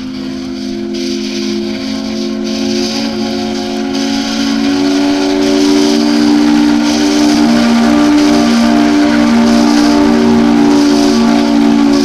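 Steam locomotive whistle blowing one long chord of several steady tones over a steam hiss, swelling louder over the first half and then holding.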